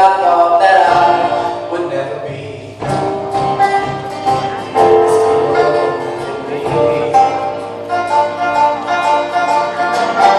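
Live band music with singing over guitar; it drops away briefly about two and a half seconds in, then comes back in full.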